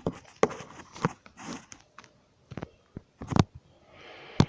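Glossy slime being squeezed and pressed by hand, giving a string of sharp wet clicks and pops at uneven intervals. A faint steady hiss comes in near the end.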